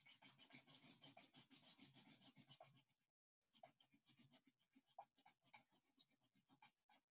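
Faint, rapid back-and-forth scratching of a drawing tool colouring in on paper, pausing briefly about three seconds in and then going on in sparser strokes.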